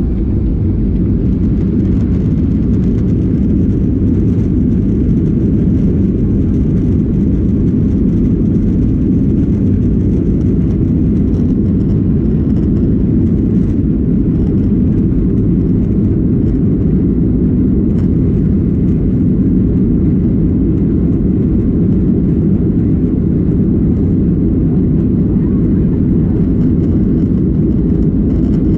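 Cabin noise of a Boeing 737-800 heard from a seat near the rear: its CFM56 jet engines and airflow making a loud, steady low rumble.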